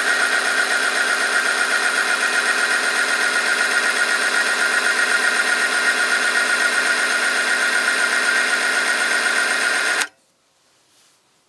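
Oil-film strength test machine running under load, its electric motor spinning a steel roller against the oil-coated test sample: a loud, steady whine with one strong high tone. It stops abruptly about ten seconds in when the machine is switched off.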